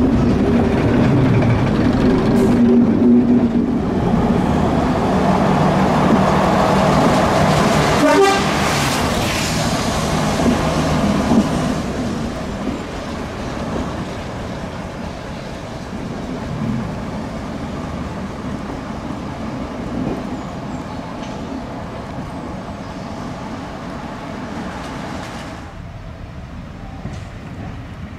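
First-generation British Rail diesel railcars running under power, their underfloor diesel engines working, with a horn sounding. The sound is loudest in the first dozen seconds and then settles into a quieter, steadier running noise.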